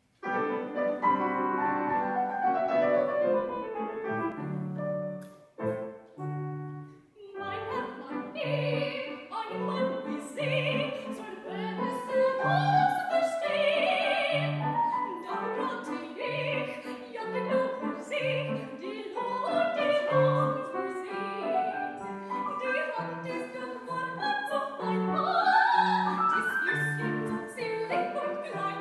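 Solo soprano singing an operetta aria with grand piano accompaniment. The piano opens alone, and the voice enters after several seconds, singing with vibrato over regular low piano notes on the beat.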